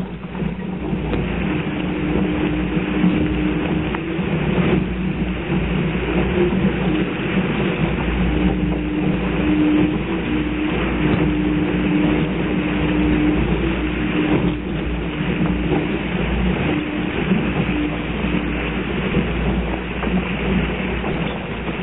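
Wind buffeting the microphone and water rushing and splashing along the hull of a small sailing dinghy under way at speed. A low steady hum comes and goes through it.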